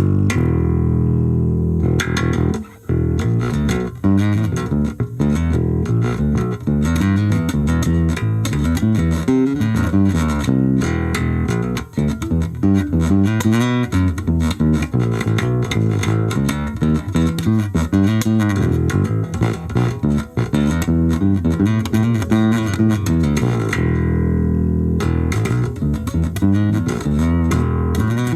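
Charvel four-string P-bass style electric bass played through a small VOX Soundbox Mini amplifier plugged in directly: a continuous run of plucked bass notes and lines, with a few short breaks between phrases.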